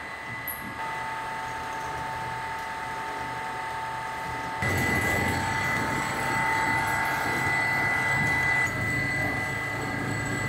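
Ramen noodle-making machinery running: a steady mechanical hum with a few high, steady whining tones. It becomes suddenly louder about four and a half seconds in.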